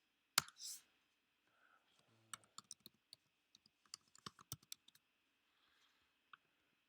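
Computer keyboard keys clicking quietly. There is a single sharp click about half a second in, then a quick run of keystrokes from about two to five seconds in, and one last click near the end.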